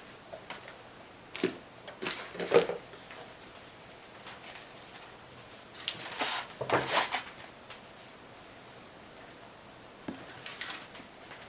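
Small items of a screen-cleaning kit being handled and set down on a surface: scattered taps, knocks and rustles in a few short clusters, the loudest about two and a half seconds in and another run around seven seconds.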